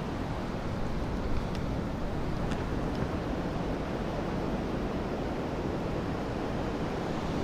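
Steady rush of Pacific surf breaking and washing over a rocky beach.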